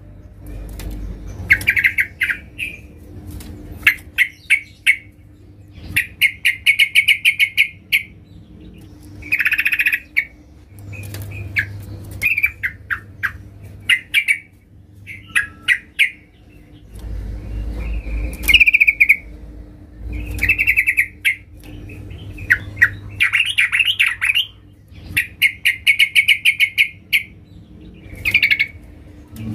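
Yellow-vented bulbul (trucukan) calling in short, fast chattering phrases, one every second or two, given as a female calling for a male.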